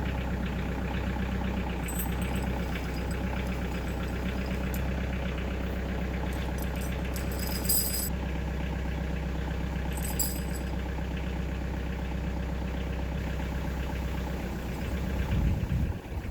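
Kioti DK45SE tractor's diesel engine running steadily at low speed while the tractor creeps forward to draw an ice chain onto a rear tire, with a brief rise in engine level near the end. A few short clinks are heard around the middle.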